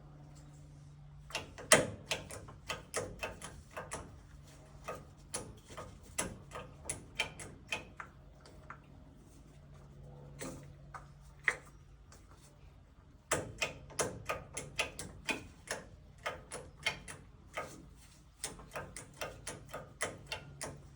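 Series of sharp clicks, about two or three a second, in two long runs with a short break about two-thirds of the way through, from hands working the gas water heater's pilot controls. A faint low steady hum runs beneath.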